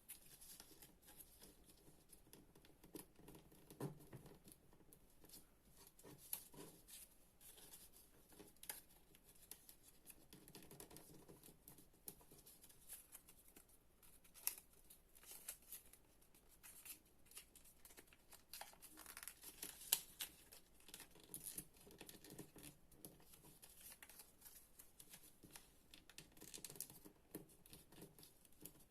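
Paper being folded and creased by hand: faint rustling and crinkling with scattered crisp clicks as folds are pressed, in irregular bursts.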